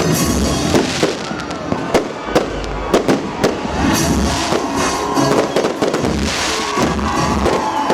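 Fireworks display: irregular bangs of bursting shells, several a second at times, over music playing.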